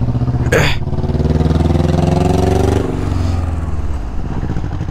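Motorcycle engine running, its pitch rising for about two seconds and then falling back. A short sharp noise sounds about half a second in.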